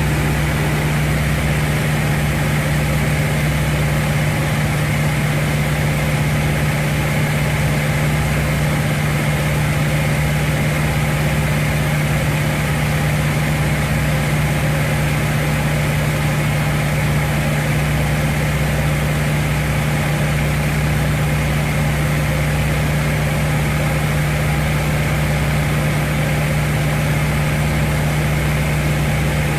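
North American T-28 Trojan's radial engine running steadily: a constant drone with a strong low hum, holding the same pitch and loudness throughout.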